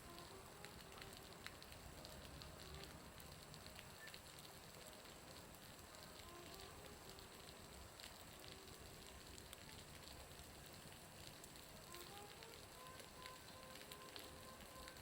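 Faint crackle and patter of a bonfire mixed with meltwater dripping off a roof, the drips sounding much like the fire's crackle. Faint snatches of music come and go.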